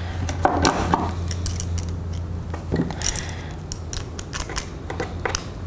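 Steel slip-joint pliers clicking and scraping on stiff armature wire as it is kinked and bent by hand, with a few light metal clinks as tools touch the table. A steady low hum runs underneath.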